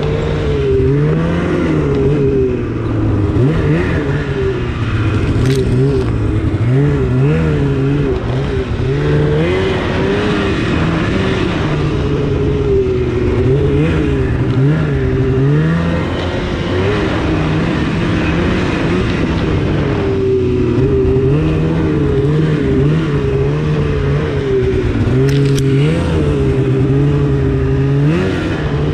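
2016 Polaris RMK 800's two-stroke twin engine, fitted with a Bikeman aftermarket exhaust can, running under way, its pitch rising and falling again and again as the throttle is worked on a tight, winding snow trail.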